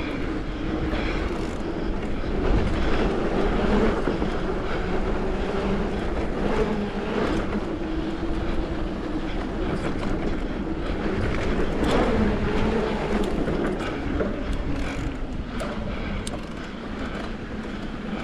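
Mountain bike running down a dirt trail: tyres rolling over dirt and rocks and the bike rattling, with a steady buzz whose pitch rises and falls with the speed.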